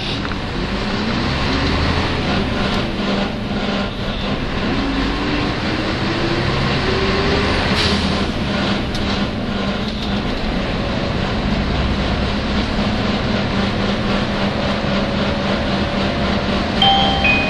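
Nissan Diesel UA city bus (U-UA440NAN) running under way, heard from inside: diesel engine and drivetrain noise with a steady hum and a whine that rises slowly in pitch as it gathers speed. This is an abnormal-noise bus; such noises tend to appear on these buses as their vehicle inspection falls due. A short high beep sounds near the end.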